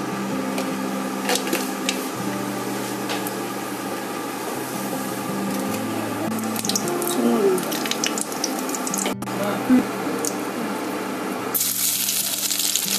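Panch phoron seeds and dried red chillies crackling in hot mustard oil in a steel kadai, with faint scattered pops over a steady low hum. Near the end a louder hissing sizzle starts.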